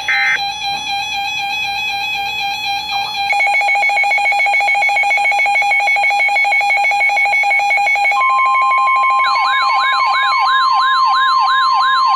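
Emergency alert tones on a weather radio for a severe thunderstorm warning: a steady alarm tone, then a fast pulsing beep from about three seconds in. About eight seconds in a steady, higher alert tone starts, and about a second later a fast yelping siren sweep joins it.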